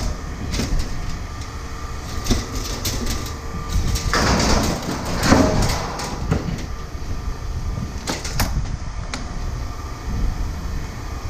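Scrap metal being handled: scattered knocks and clanks, with two longer scraping clatters about four and five seconds in, over a steady low rumble.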